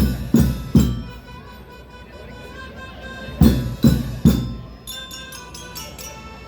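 School marching band playing: three heavy drum strikes, the same three strikes again about three seconds later, then a quick run of sharp, bright strokes at about five a second, over a held tone.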